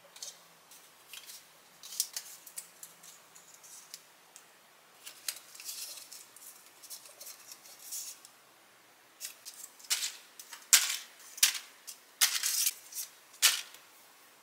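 Dry rice paper crinkling and crackling as it is handled and wrapped around slices of raw pork belly, in short crisp rustles that grow denser and louder in the last few seconds.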